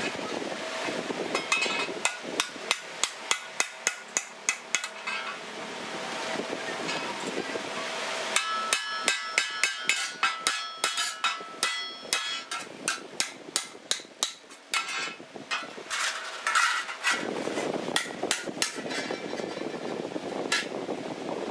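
Hand hammer striking a sheet-steel hoe blade on a small anvil, in runs of rapid blows with a metallic ring. The blows come about three a second, stop for a few seconds, then return in a faster run, and scatter near the end.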